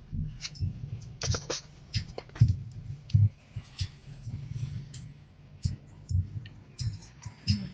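Irregular low thumps and sharp clicks, a few to each second, with no steady sound underneath.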